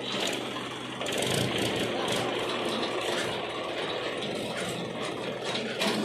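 Sonalika farm tractor's diesel engine running, getting louder about a second in, with a rattling mechanical clatter over it.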